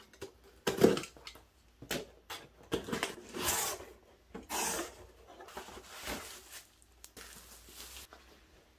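A cardboard shipping box being opened by hand with a box cutter: the blade slitting the packing tape, the cardboard flaps scraping open and the packaging rustling, with a sharp knock about a second in and several smaller knocks as boxes are handled.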